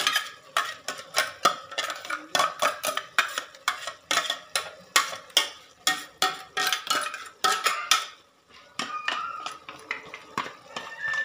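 A steel spoon clinking and scraping against a steel mixer-grinder jar and the steel pressure cooker as a wet green paste is knocked out and stirred in: quick metallic clinks about two or three a second, with a short lull about eight seconds in before softer clinks resume.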